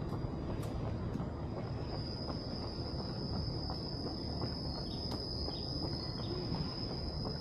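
A steady high-pitched insect drone over a constant low rumble of distant city traffic, with a run of short faint chirps repeating about twice a second in the last couple of seconds.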